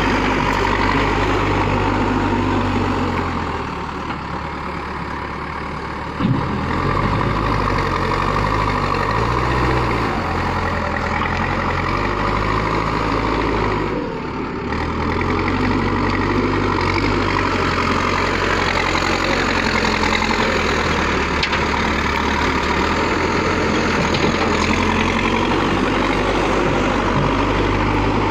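Backhoe loader's diesel engine running while it works, its pitch shifting up and down as the throttle changes. About six seconds in there is a sharp knock after a short quieter spell.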